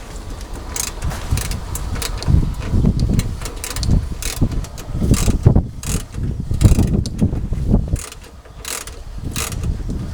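Irregular clicks, knocks and clatter of hand tools and metal parts being worked while a car radiator is fastened back in place.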